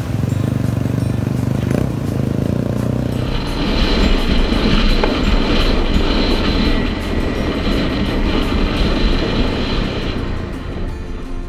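Single-cylinder 250 cc trail bike engines running as the bikes ford a river, then a ride along a dirt track with the engine under heavy wind noise on the helmet-mounted microphone.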